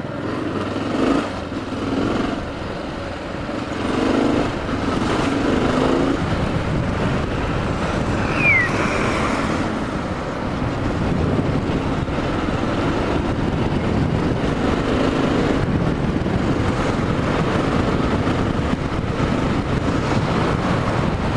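Yamaha XT 600 single-cylinder motorcycle riding in city traffic, heard from a helmet-mounted camera with steady wind rush over the microphone. The engine swells a few times in the first six seconds, and a brief high falling squeak comes about eight seconds in.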